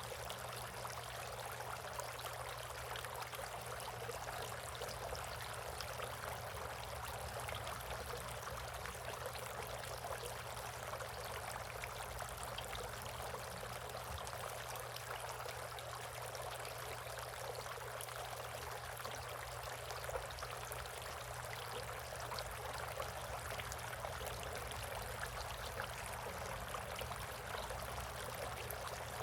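Water trickling and splashing steadily in a bird bath, an even, unbroken flow with a faint steady low hum underneath.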